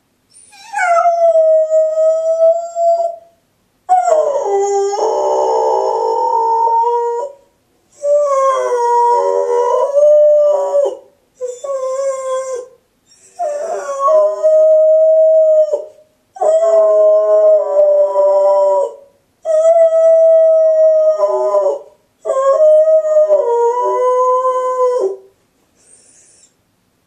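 Labradoodle howling alone: a run of about eight long howls, each two to three seconds, with short breaks between. It is the lonely howl of a dog left home alone and missing its owners.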